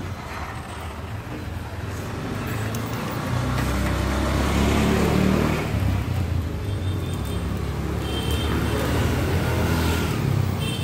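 Steady hiss of a gas welding torch working on a scooter's sheet-metal floor, under a low rumble of road traffic that swells about three and a half seconds in.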